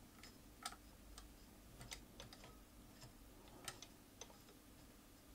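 Faint, irregular clicks and ticks from a Juki DDW-9A industrial sewing machine's needle, hook and feed mechanism as the machine is turned over slowly by hand, about eight clicks over a low room hum.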